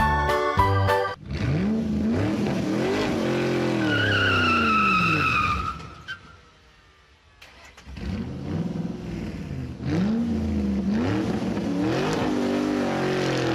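Keyboard music for about the first second. Then a car engine revs up and down over and over, with a tyre squeal about four to six seconds in. The engine sound drops away for about two seconds and then revs again.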